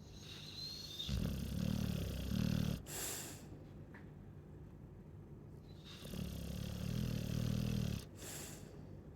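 Chow chow snoring: two loud snores about five seconds apart, each a low rattle lasting nearly two seconds followed by a short hiss of breath.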